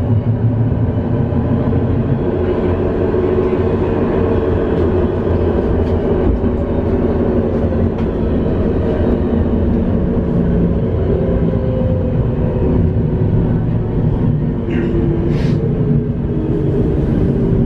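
Tram running between stops, heard from inside the car: a steady rumble of wheels on rails with electric drive tones that slowly drift in pitch. A brief high squeak comes about fifteen seconds in.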